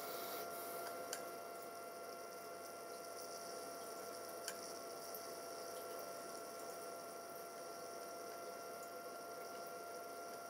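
Steady faint hum and high whine from the controller's small cooling fan and electronics, with two short clicks of its menu push buttons being pressed.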